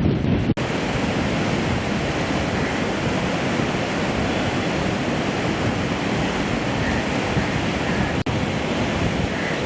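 Swollen Godavari floodwater rushing through the Dowleswaram barrage: a steady, even rush of water with wind buffeting the microphone. The sound breaks off for an instant twice, about half a second in and near the end.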